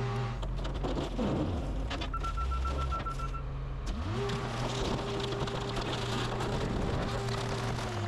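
An engine running at a steady speed slows down about a second in and revs back up around four seconds, then holds steady again. A quick run of short high beeps sounds between about two and three and a half seconds.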